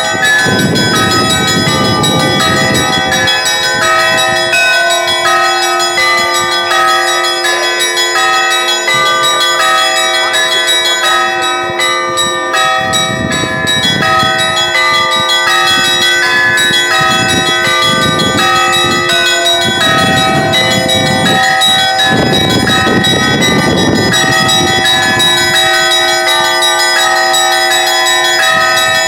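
Russian Orthodox church bells rung together: many bells of different pitches struck over and over in a dense, continuous peal, their ringing overlapping.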